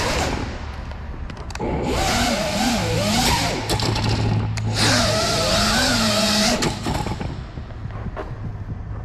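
FPV quadcopter's brushless motors and propellers whining, the pitch rising and falling as the throttle is worked. There are two loud stretches of full throttle with a brief drop between them, and it eases off near the end.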